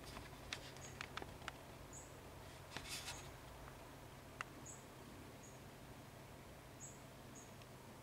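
Faint, short high-pitched chirps repeating every second or so, with scattered sharp clicks and a brief rustle of dry leaves about three seconds in.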